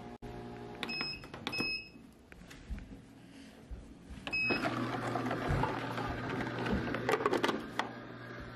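Compressor ice cream maker's control panel beeping twice about a second in and once more as the start button is pressed, after which the machine starts running with a steady hum: the compressor and churning paddle beginning a freeze cycle. A few sharp clicks near the end as the clear plastic lid is handled.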